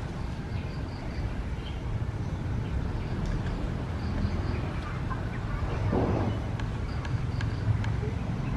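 Steady low outdoor rumble, with faint high chirps every few seconds and a brief noise about six seconds in.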